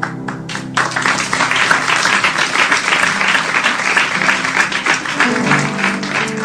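Audience applause that swells about a second in and fades after a few seconds, with guitar music coming back in under it near the end.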